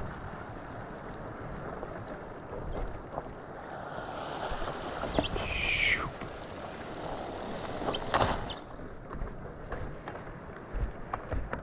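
Fat bike being ridden down a wet, rocky canyon trail: steady rolling and rushing noise with scattered clicks and rattles from the bike, and two louder rushes, about five and eight seconds in.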